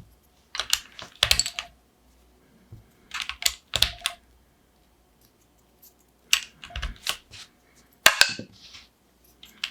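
Keycaps being pressed back onto the Gateron North Pole 2.0 switches of a Keychron Q1 Pro mechanical keyboard, in four short clusters of sharp clicks with quiet gaps between.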